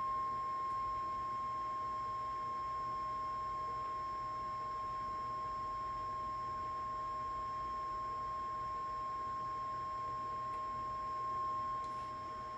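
Steady 1 kHz sine test tone, a pure whistle held unbroken at one pitch. It is the audio test tone used to modulate a CB radio for checking its modulation peak on the bench.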